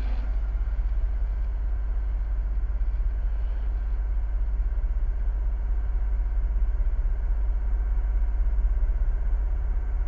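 A steady, deep low rumble that holds even throughout, with a faint haze above it.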